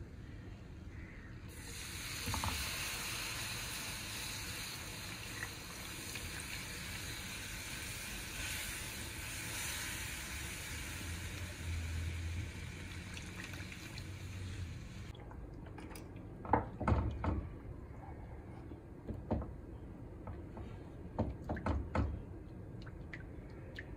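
Milk poured into a hot roux of flour and oil in a nonstick pan, with a steady hissing sizzle that stops abruptly about two-thirds of the way through. After that, a silicone spatula stirring the thickening white sauce, knocking and scraping against the pan several times.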